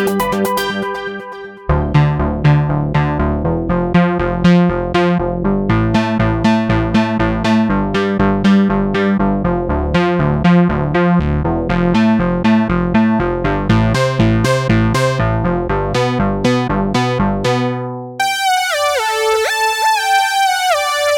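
Spectrasonics Omnisphere synth presets being demonstrated. A fast run of short, plucky keyboard-like synth notes plays over a bass line, and near the end it gives way to a different, higher synth lead with gliding notes.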